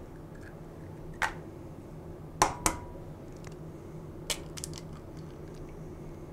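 Egg tapped against a glass mixing bowl and cracked open: a few sharp clicks, two close together about two and a half seconds in, over a steady low hum.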